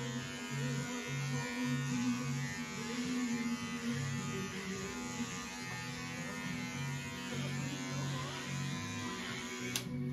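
Electric hair clippers buzzing steadily during a home haircut, switched off with a click near the end.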